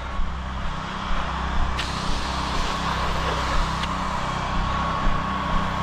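Steady low engine drone with a hiss of pressurised water from a pressure-washing setup that starts suddenly about two seconds in and holds steady.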